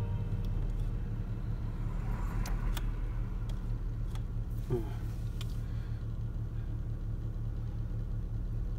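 Peugeot 306's engine idling steadily, with a few light clicks a couple of seconds in and around the middle.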